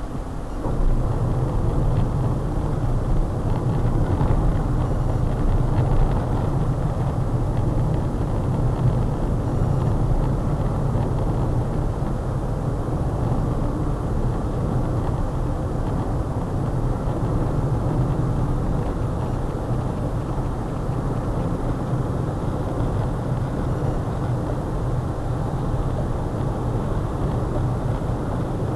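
Truck driving at speed: a steady low engine and road rumble that gets louder about a second in and then holds even.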